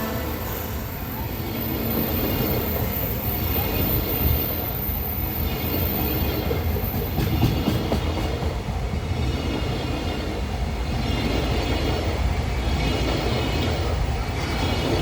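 Freight train hauled by a JR Freight EF210 electric locomotive rolling past at speed: a steady rumble of steel wheels on rail, with a quick run of clicks over rail joints about halfway through.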